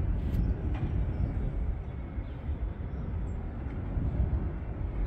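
Wind buffeting the phone's microphone: a low, uneven rumble, with a couple of faint clicks about half a second in.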